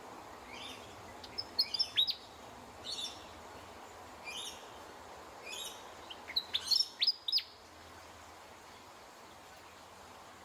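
Willie wagtail singing: two bursts of quick, high whistled notes with sharp downward-sliding notes, softer chirps in between, falling silent about three-quarters of the way through.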